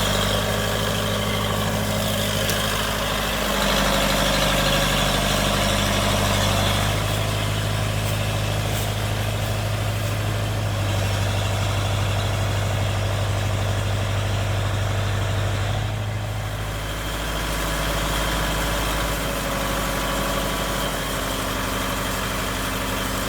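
A vehicle engine idling with a steady low hum. Its pitch steps up or down a few times.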